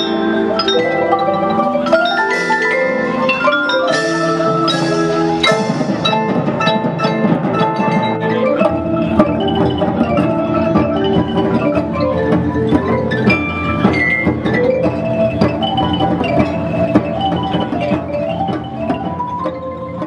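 School percussion ensemble playing a piece on mallet instruments, marimbas and xylophones with bell-like glockenspiel notes, with quick rising runs of notes in the first few seconds.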